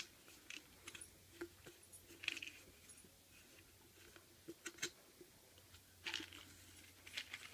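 Small dry snack puffs faintly rattling and clicking inside a plastic canister as a baby's hand digs in for them, in scattered short rattles with a few louder clicks.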